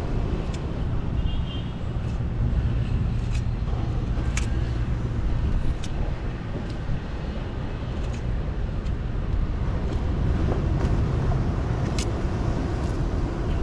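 A few sharp clicks and scrapes of a knife against rock as a fish is cut up for bait, over a steady low rumble.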